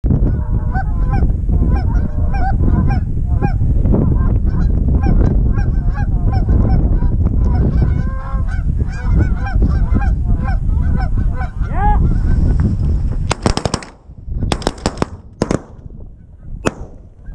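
A flock of Canada geese honking repeatedly as they come in over the decoys, with wind rumbling on the microphone. About thirteen seconds in, a rapid string of shotgun shots rings out, and one more follows near the end.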